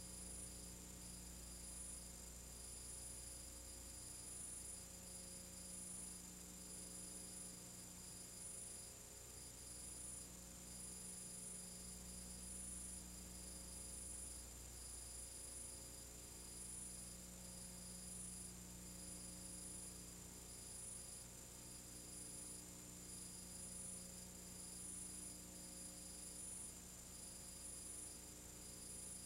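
Faint steady electrical hum with a thin high whine and hiss, and no other sound: the empty soundtrack of a silent film transfer.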